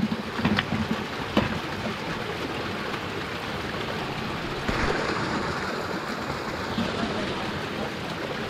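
Running water splashing steadily from a garden hose over fish in a plastic basket and draining into a concrete channel, a little louder about halfway through, with two light clicks near the start.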